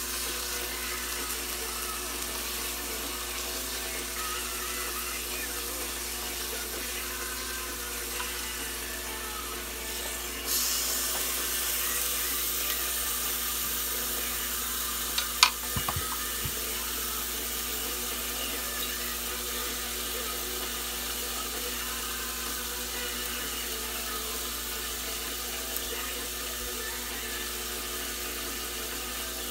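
Kitchen tap running steadily into a sink, the flow growing stronger about ten seconds in. There is a single sharp clink about halfway through.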